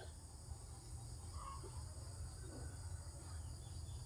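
Faint steady background: a high-pitched chirring drone over a low hum, with a few faint voices in the distance.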